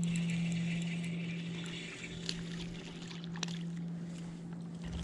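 Spinning fishing reel being cranked, its gears whirring and clicking for about the first two seconds, then a few scattered ticks, over a steady low hum.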